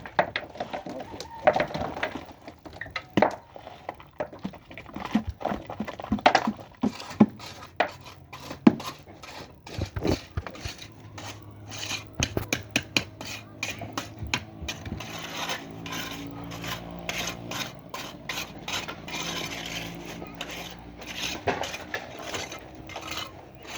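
Irregular sharp clinks, knocks and scrapes of hand tools and materials in building work, with a steady low hum joining about halfway through.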